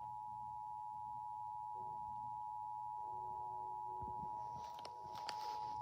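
Emergency Alert System attention signal: a steady dual-tone alert, two pitches of about 853 and 960 Hz sounding together without a break.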